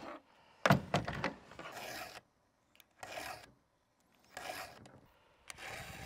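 Chainsaw chain being sharpened by hand with a round file: several slow rasping strokes about a second apart. A sharp knock about two thirds of a second in is the loudest sound.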